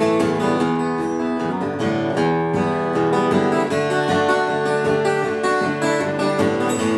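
Solo acoustic guitar being strummed, an instrumental passage with no singing.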